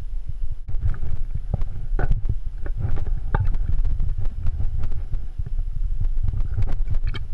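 Water sloshing and knocking in a water bottle carried in a backpack as the wearer moves, over a low, uneven rumble, with scattered clicks and scuffs of hands and boots on rock.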